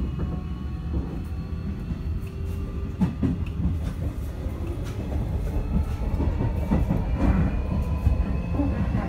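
Interior running sound of a Hanshin 5700 series EMU under way: low wheel-and-track rumble with faint steady whines from its Toshiba IGBT VVVF inverter and permanent-magnet synchronous motors. Rail-joint clacks sound now and then, a little louder toward the end.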